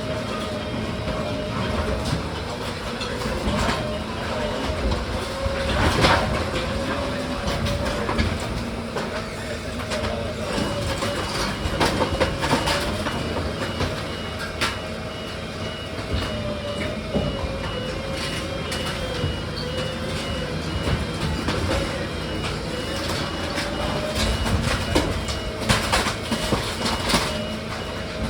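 Heavy machinery running steadily, with a whine that drifts up and down in pitch and scattered knocks and clanks, the loudest about six, twelve and twenty-six seconds in.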